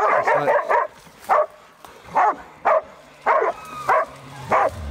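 Pig-hunting dog barking repeatedly at a boar held up in a cave, a steady run of sharp barks at about two a second: the dog is baying the boar.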